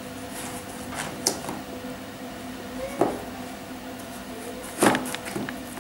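Kitchen knife cutting courgette on a wooden cutting board: a few irregular knocks as the blade hits the board, the loudest about five seconds in.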